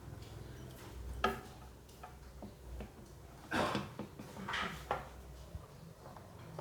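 Hard computer parts being handled on a workbench: a sharp click about a second in, two short scraping rustles in the middle, and a few faint ticks, as the CPU cooler is got ready for mounting.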